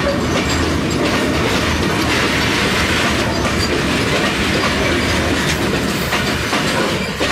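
Freight train of bogie oil tank wagons rolling past close by: a steady, loud rumble and clatter of steel wheels on the rails.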